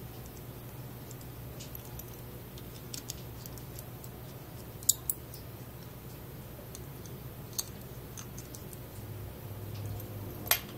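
Scattered small clicks and taps of 3D-printed plastic parts and a precision screwdriver being handled while tiny screws are fitted, over a faint steady low hum. The sharpest clicks are two close together about five seconds in and one near the end.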